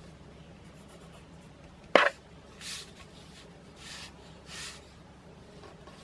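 A fine-tip technical drawing pen scratching on paper in three short strokes, after one sharp click about two seconds in.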